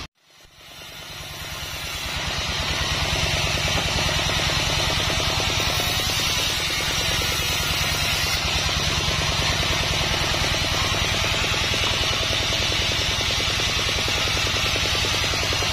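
Large 36-inch sawmill band saw running steadily with a low hum while ripping Sonokeling (Indian rosewood) stock along its fence. The sound cuts out briefly at the start and fades back in over about two seconds.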